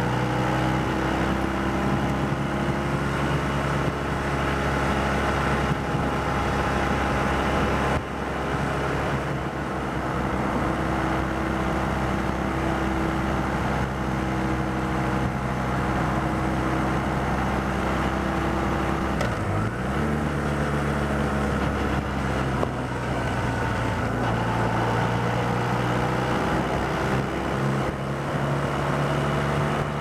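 BMW Rockster's boxer-twin engine running at cruising speed, mixed with rushing wind noise. The engine note eases off briefly about a quarter of the way through and changes pitch about two-thirds of the way through.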